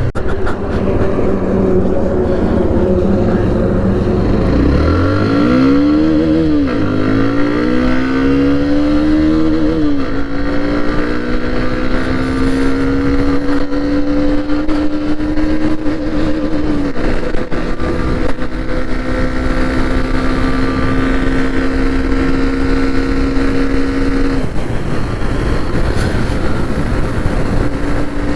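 Hero Xtreme 125R's single-cylinder engine pulling through the gears. Its pitch climbs and then drops sharply at each of about four shifts.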